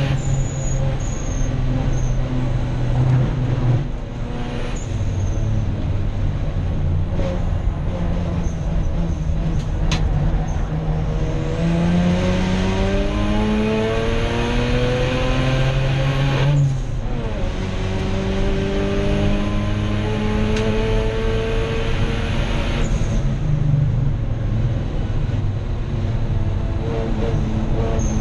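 Mazda RX-8 race car's rotary engine heard from inside the cockpit under hard acceleration, its pitch climbing steadily in a long pull and dropping sharply at a gear change a little past halfway, then climbing again before settling lower near the end, over steady road and wind noise.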